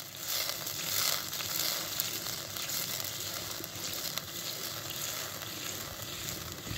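Water, sugar and ghee sizzling in a steel pot over a wood fire, a steady hiss as the sugar syrup heats and starts to bubble.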